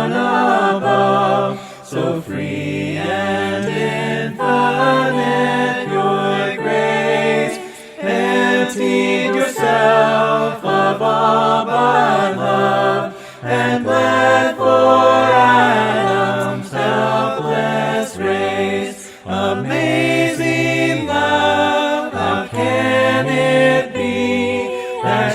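A group of voices singing a hymn a cappella, with sustained, held notes and short breaths between phrases.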